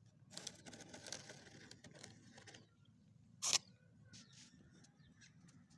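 Rustling, scraping handling noise, with one short, sharp hiss-like burst about three and a half seconds in, then faint scattered ticks.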